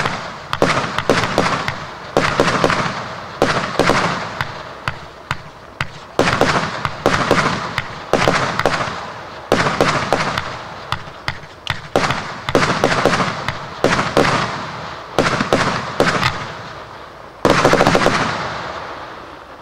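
A 100-shot firework cake firing shot after shot: sharp reports in quick succession, each group trailing off into a noisy burst. About two seconds before the end comes the loudest burst, which then dies away.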